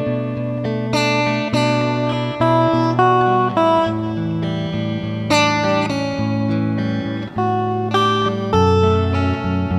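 Background music: a plucked guitar playing a melody over held bass notes.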